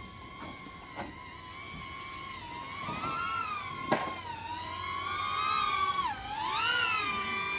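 A small quadcopter drone's propellers whining, with the pitch wandering up and down and dipping sharply about six seconds in as the motor speeds change.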